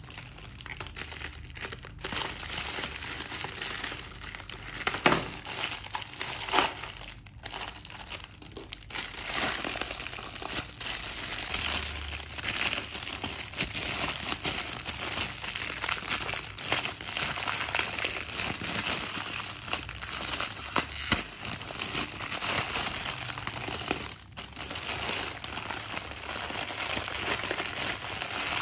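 Thin clear plastic wrapping crinkling and crackling as hands pull it off a plastic water bottle, with a couple of brief pauses.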